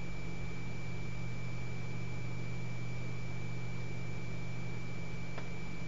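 Steady hiss with a low electrical hum and a thin, high, steady whine: the recording's background noise while nobody speaks. There is one faint click near the end.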